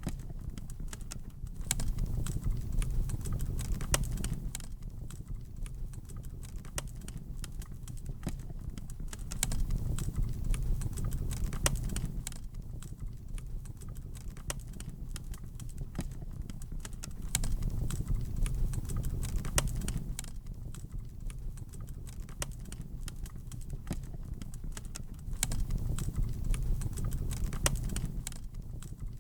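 Wood fire crackling in a fireplace, with many small sharp pops and snaps at irregular intervals over a low rush of flame that swells and fades about every eight seconds.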